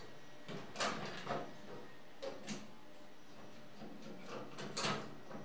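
Screwdriver working the retaining screws of a CPU heat sink on a desktop motherboard: scattered small metal clicks and scrapes, the clearest about a second in and near the end.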